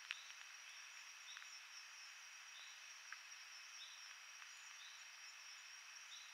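Faint chorus of insects: a steady high drone at two pitches, with a short chirp repeating about every second and a quarter, and a couple of small clicks near the start.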